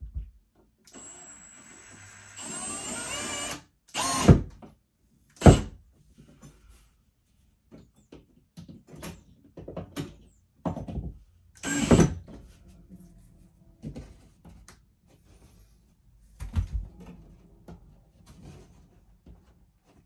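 A metal closet-rod bracket being handled and fixed to a drywall wall: scattered knocks and clicks, three of them sharp and loud. A short whir rising in pitch comes about three seconds in.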